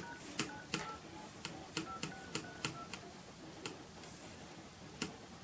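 iPhone 6 emergency-call keypad: digits tapped on the touchscreen about ten times, each tap giving a click and a short two-tone dialing beep, mostly in quick succession in the first three seconds and once more near the end. The beeps show that the newly replaced screen is registering touch.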